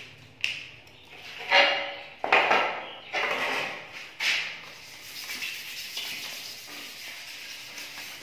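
A metal motorcycle mudguard is handled with a few knocks and scrapes, then rubbed by hand with 1500-grit sandpaper: a steady rasping rub over the metal from about five seconds in.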